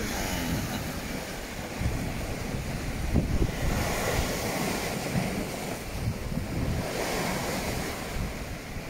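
Seawater rushing and splashing over shoreline rocks in repeated surges, with wind gusting on the microphone.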